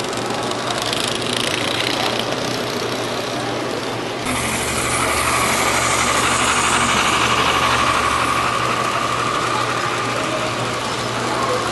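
HO-scale model train running on the layout, a steady mechanical whir and rattle of motor and wheels on track. About four seconds in, it suddenly gets louder, with a steady higher whine that lasts until near the end.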